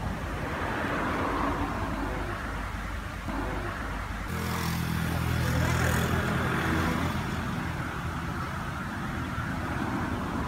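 Road traffic noise, with a motor vehicle's engine passing close by from about four to seven seconds in.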